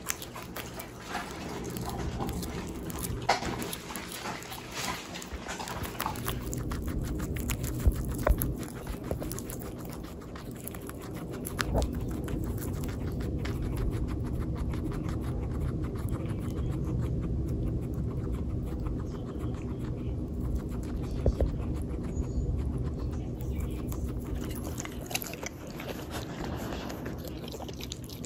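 A dog breathing heavily while pets munch on kale, with scattered crisp chewing crunches.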